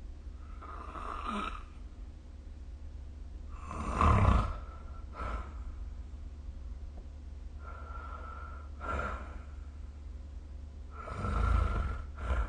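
A sleeping person snoring: about four snoring breaths a few seconds apart, the loudest about four seconds in and near the end, over a steady low hum.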